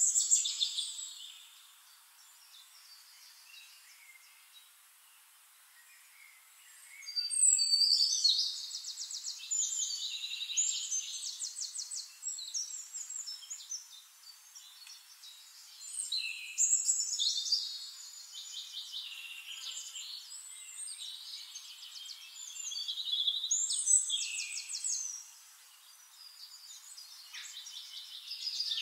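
Songbirds singing: rapid high trills and chirps, coming in bursts a few seconds long with quieter spells between.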